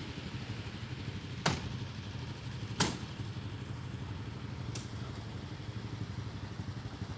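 An engine running steadily at a low, even pitch, with three sharp knocks over it spaced a second or two apart.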